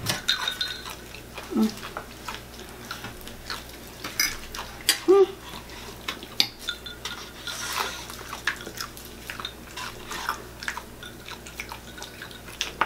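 A fork clinking and scraping against a plate and a paper food cup during a meal, in scattered light clicks and taps.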